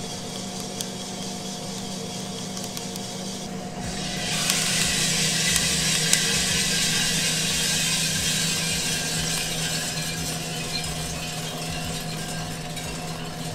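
Small Probat drum coffee roaster running with a steady hum and scattered small pops of first crack. About four seconds in, a loud rushing sets in as the roasted beans pour out of the drum into the cooling tray and the tray's vacuum fan pulls air through them. The rushing goes on while the beans are stirred by hand.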